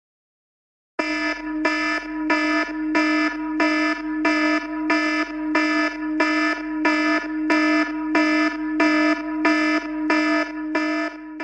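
Electronic alarm tone: a pitched, repeating beep pattern that pulses evenly about one and a half times a second. It starts about a second in and keeps going without change.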